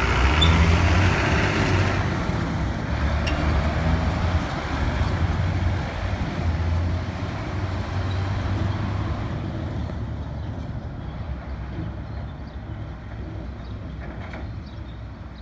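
Farm tractor towing a large three-axle silage trailer drives past and away, its diesel engine running with road noise from the tyres; the sound fades steadily as it moves off.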